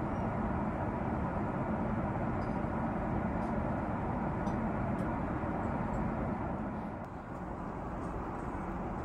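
Airbus A380 cabin noise in flight: a steady, low rushing hum of airflow and engines, with a slight dip about seven seconds in.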